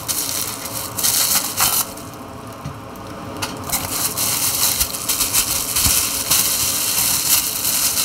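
Packaging crinkling and rustling as it is unwrapped by hand, in irregular bursts with a quieter lull about two seconds in.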